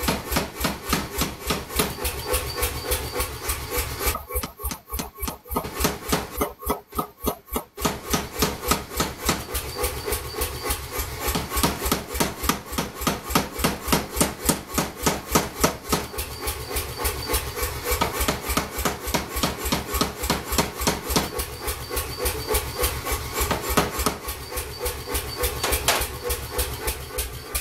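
A forging hammer striking a hot steel blank, drawing it out and texturing it into a handle, in rapid even blows of about five a second, with two short pauses near the start. A steady machine hum runs underneath.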